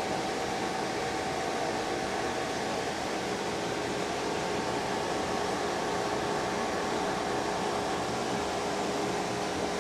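Steady mechanical hum and hiss at an even level, with two steady tones in it.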